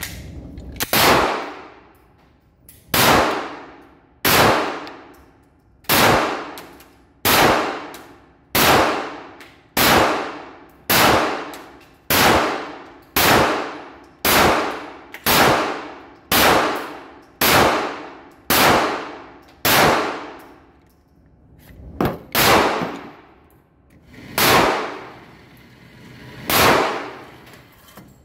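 A run of about nineteen sharp metallic clangs, roughly one every second and a quarter and a little more spaced out near the end, each ringing out for about a second: bullets striking a steel target.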